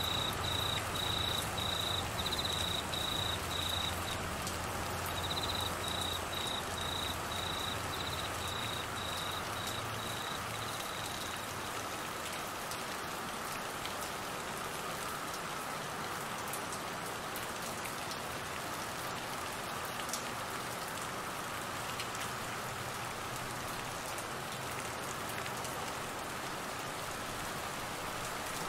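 Steady heavy rain falling on trees and grass. Over it a cricket chirps high in short, even pulses, about two a second, pausing briefly about four seconds in and stopping about eleven seconds in.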